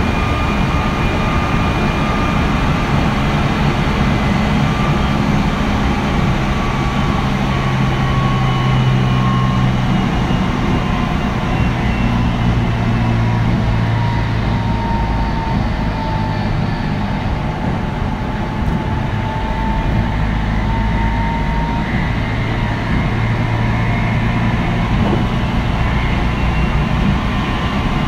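Meitetsu 3100 series electric train running at speed, heard from aboard the car: a steady rumble of wheels on rail with the whine of its Toshiba IGBT VVVF traction motors. The whine sags slightly in pitch about halfway through and climbs again near the end.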